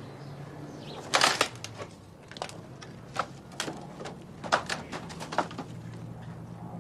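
Dry twigs and brush crackling and snapping, as under someone's feet moving through undergrowth. A loud cluster of cracks comes about a second in, then single sharp snaps at irregular intervals of about half a second to a second.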